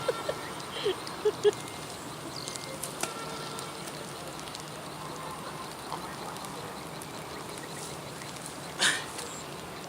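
Quiet outdoor background with insects buzzing and a faint steady high whine. A few small clicks come in the first second and a half, and a short noisy burst comes near the end.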